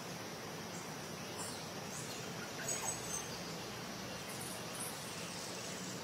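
Forest ambience: a steady, even hiss of background insects, with a few short, high bird chirps about halfway through.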